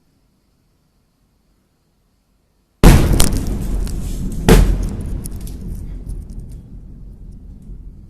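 Blast wave of the Beirut port ammonium nitrate explosion reaching the microphone: a sudden, very loud boom almost three seconds in, a second sharp crack about a second and a half later, then a low rumble that slowly fades with scattered crackles.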